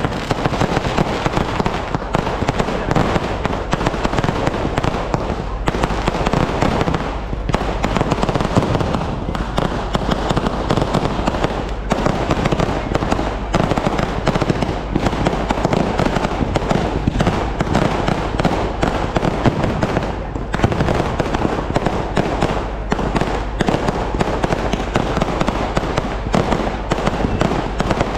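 Aerial fireworks going off in a dense, unbroken barrage of rapid bangs.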